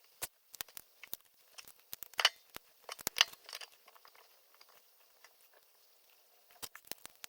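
LEGO pieces being handled and pressed together: scattered sharp plastic clicks and taps, with two louder bursts of clatter about two and three seconds in, then a quieter stretch with only a few clicks.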